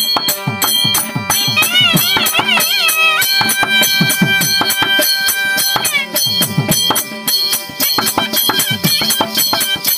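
Therukoothu ensemble music: a barrel drum plays fast strokes while a wind instrument plays a wavering, ornamented melody over a steady harmonium drone. The dancer's ankle bells jingle with the footwork.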